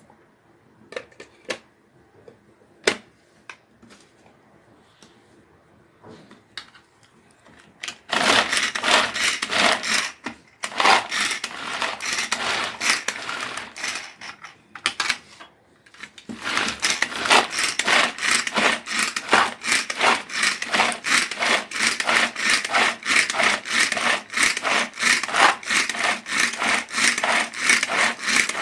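Ganesh manual pull-cord vegetable chopper: after a few clicks as the plastic lid is fitted, the cord is yanked again and again in quick succession, spinning the blades through onion chunks with a fast whirring clatter, in three runs with short pauses.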